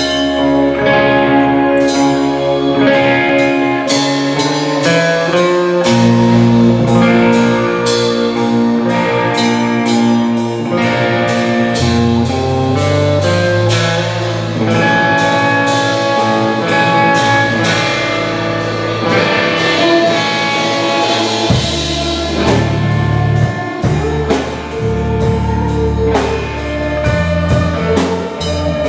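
Live rock band playing: electric guitars holding long notes over a drum kit keeping a steady beat, with low bass notes that shift every few seconds.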